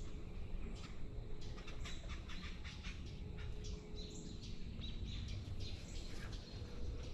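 Small birds chirping, a quick irregular run of short high calls, over a steady low rumble.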